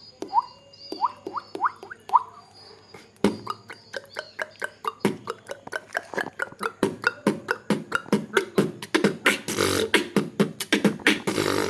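Beatboxing: mouth-made water-drop sounds, a string of short rising 'bloop' blips. About three seconds in, these break into a fast beatbox rhythm of rapid clicks and hissy snares that gets denser toward the end.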